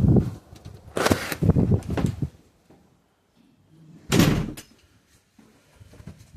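Knocks and clunks from the car door being handled, with the loudest clunk about four seconds in.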